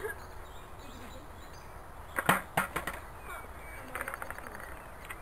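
Skateboard striking the concrete of a skatepark: two sharp clacks about two seconds in, a fraction of a second apart, then a quick rattle of smaller clicks, with faint voices in the background.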